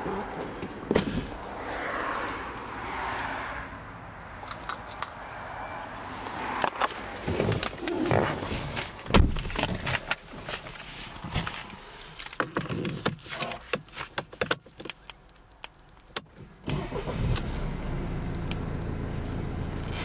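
Scattered clicks, knocks and rustles of handling inside a Mercedes-Benz C220 coupé's cabin. Near the end the car's four-cylinder diesel engine starts and settles into a steady idle.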